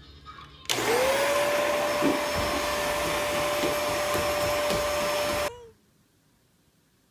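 Vacuum cleaner switched on, its motor whine rising quickly to a steady pitch over a loud rush of air. It runs for about five seconds, then is switched off and the whine drops away.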